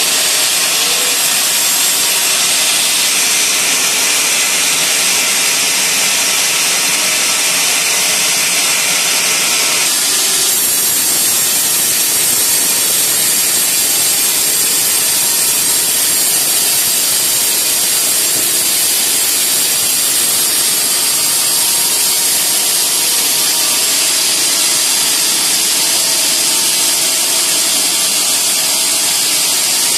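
Band sawmill blade cutting steadily through a teak log, a loud continuous hiss of the blade in the wood over the machine's running, changing tone a little about ten seconds in.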